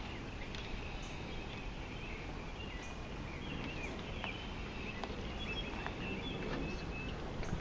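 Quiet outdoor ambience: small birds chirping over a steady low background rumble, with a few faint scattered clicks.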